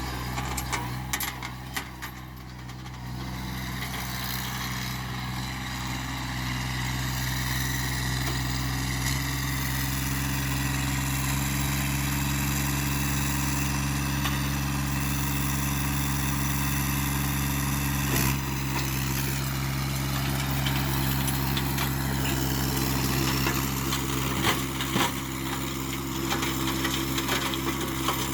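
Massey Ferguson GC1715 compact tractor's three-cylinder diesel running at a steady speed while driving a rear PTO tiller through soil. A few sharp knocks come through now and then.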